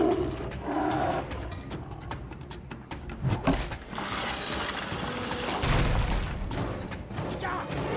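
Tense film score mixed with action sound effects, with a low thud about six seconds in.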